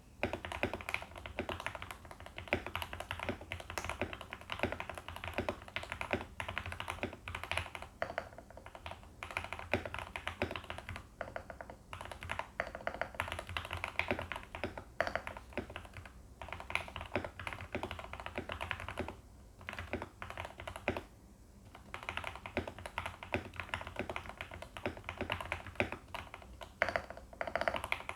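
Continuous typing on a VL84 mechanical keyboard with factory-lubed Gateron Pro Yellow linear switches and PBT dye-sub keycaps, the case and plate foam-modded. The keystrokes run as a dense stream, with two short pauses a little past the middle.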